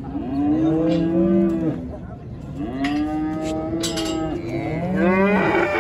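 Simmental cattle mooing: three long, drawn-out calls from more than one animal, partly overlapping, the loudest near the end.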